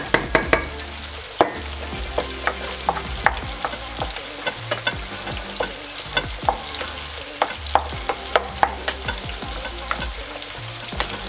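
A spoon stirring cooked rice into stir-fried chicken and vegetables in a stainless steel bowl, with irregular clinks and scrapes against the metal over a steady hiss.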